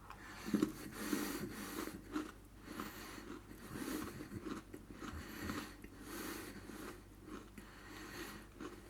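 A person chewing a mouthful of Oreo sandwich cookie, with soft, irregular crunches and mouth noises.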